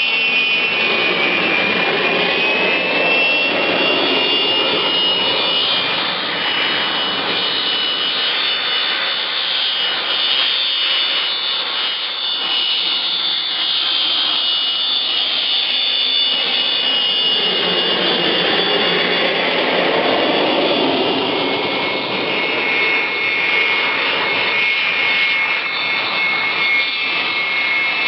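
Viper turbojets of Aermacchi MB-339 jet trainers taxiing past one after another: a steady high-pitched whine, with a louder rush swelling as a jet passes close, a few seconds in and again about two-thirds of the way through.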